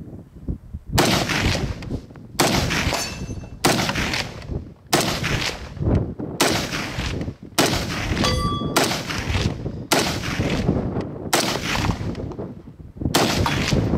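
DSA Bush Warrior FN FAL rifle, 7.62×51mm, fired semi-automatically in a slow string of about ten single shots, one every second and a half or so. Each shot trails off in a long echo. A short metallic ring follows two of the shots.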